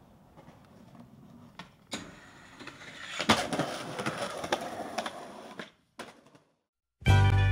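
Skateboard wheels rolling on concrete, growing louder with a few sharp clacks of the board, then cut off abruptly. Loud music starts right at the end.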